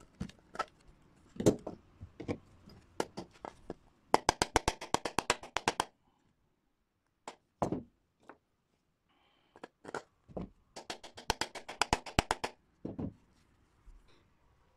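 Bench handling of tools and parts: scattered knocks and taps, and twice a run of rapid, even clicking, about eleven clicks a second for nearly two seconds each time.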